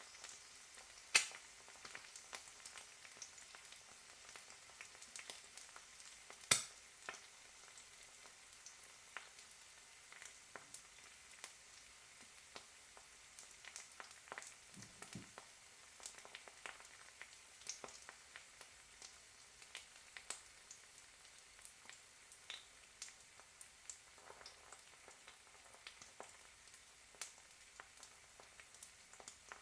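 An egg frying in a pan: a steady, fairly quiet sizzle dotted with small crackles and spits. Two louder pops come about a second in and about six seconds in.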